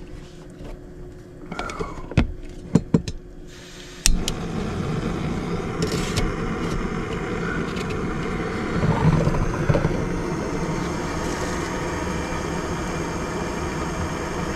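Jetboil canister stove: a few handling clicks, then the gas burner is lit with a click about four seconds in and runs with a steady rushing hiss, heating water for coffee.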